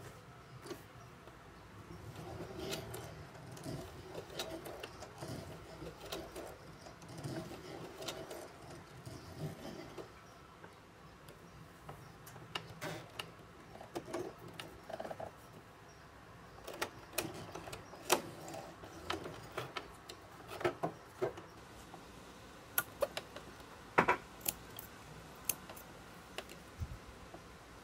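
Singer Heavy Duty sewing machine worked slowly by a hand crank on its hand wheel, stitching through a leather strap: low uneven mechanical running at first, then a string of sharp, irregular clicks from the needle mechanism in the second half.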